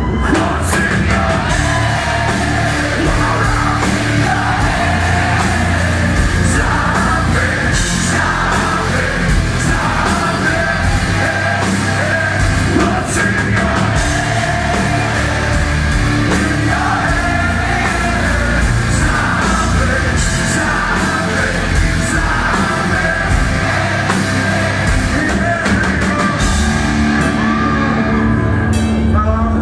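Live heavy rock band playing at full volume, with a male lead singer, recorded from within the audience.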